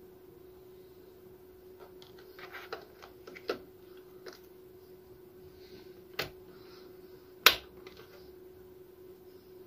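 RAM modules being pressed into motherboard DIMM slots: light plastic handling, then three sharp clicks as the slot latches snap shut on the seated sticks, the last the loudest. A faint steady hum runs underneath.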